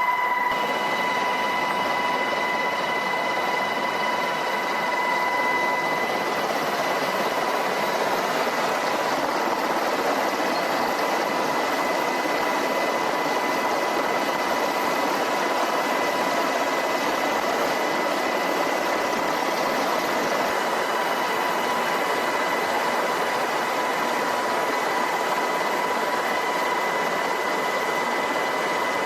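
MH-60S Seahawk helicopter running steadily: an even rushing noise with a constant high-pitched whine over it.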